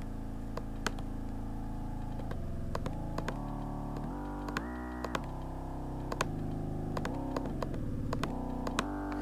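Granular sampler drone sent through a bank of very resonant filters (Q 10,000) in harmonic relationship with the factor set below 1 (0.25, then 0.2), giving a dense chord of closely spaced steady partials. The chord glides to a new pitch many times as the filter's fundamental note is changed. Sharp clicks sound throughout.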